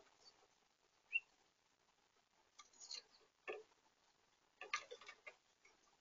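A goldfinch pecking seed on a plastic feeder tray: faint, irregular clicks and taps, bunched into short clusters about three and five seconds in.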